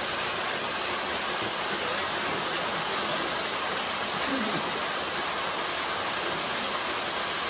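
Steady rush of a small waterfall pouring into a rock pool, an even hiss of falling water, with a brief faint voice about four and a half seconds in.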